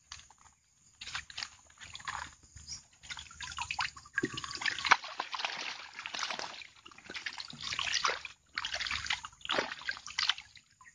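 Water sloshing and splashing in irregular bursts, heaviest from about four seconds in: caught snakehead fish thrashing inside a wire-mesh keep cage standing in the water as the cage is handled.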